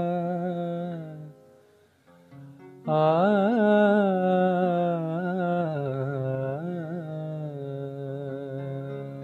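A man singing a wordless, hummed melody: held notes that fade out after about a second, a short pause, then a louder phrase with quick wavering turns about three seconds in, easing into long held notes.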